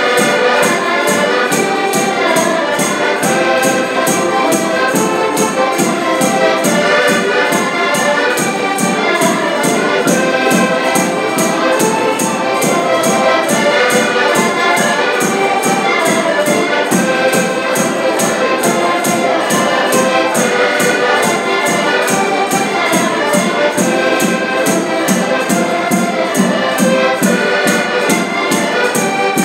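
Diatonic button accordions (concertinas) playing a lively Portuguese folk tune together, over a drum keeping a steady beat of about three strokes a second.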